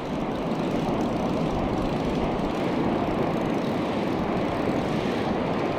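Steady rushing noise of wind on the microphone and surf breaking along the shore.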